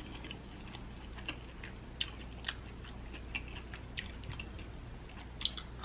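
A person chewing a mouthful of seafood boil close to the microphone, with scattered wet smacks and clicks of the mouth. The loudest smacks come about two seconds in, at two and a half seconds, at four seconds and near the end.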